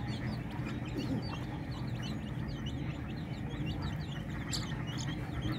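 A flock of chicks peeping constantly while pecking at scattered rice, many short high chirps overlapping several times a second, over a steady low hum.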